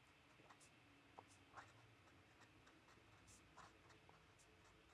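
Faint scratching of a fountain pen nib on paper while handwriting, a series of short, quick strokes.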